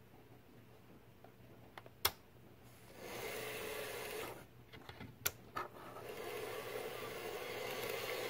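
Die-cast toy engines running along model railway track: a steady mechanical running noise of wheels and mechanism in two stretches, starting about three seconds in and again about six seconds in. A sharp click at about two seconds and two more around five seconds stand out between them.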